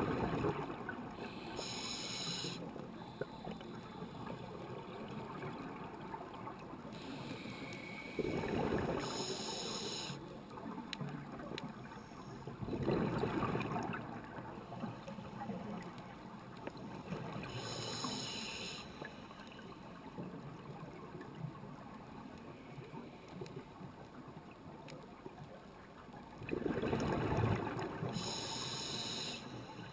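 A scuba diver breathing through a regulator, heard underwater through the camera housing: a few slow breaths several seconds apart, each a high inhalation hiss and a rushing burst of exhaled bubbles.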